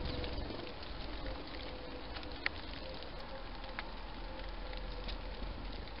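Steady outdoor background hiss with a few faint, scattered ticks.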